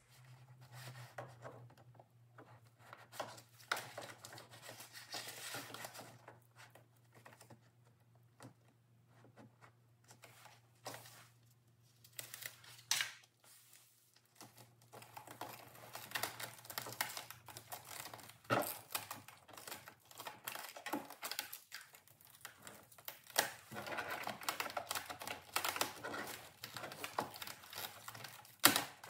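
Vinyl wrap film being handled and pressed onto a car's plastic door trim panel: irregular crinkling and rustling of the film, with light taps and clicks.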